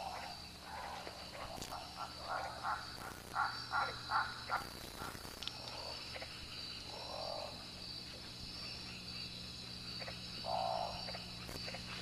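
Rainforest night ambience: a steady, high-pitched insect chorus, with a quick run of short animal calls, about four a second, between roughly two and four seconds in, and a few single lower calls later.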